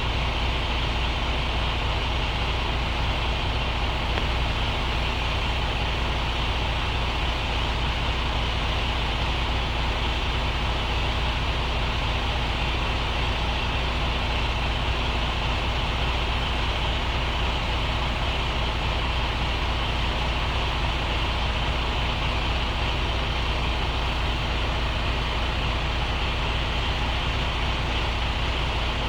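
Truck's diesel engine running steadily, a deep even rumble with a constant hum and no change in speed.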